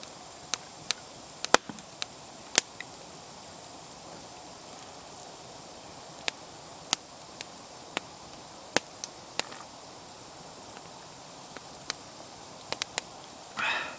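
Wood campfire crackling, with sharp, irregular pops and snaps every second or so over a steady low hiss.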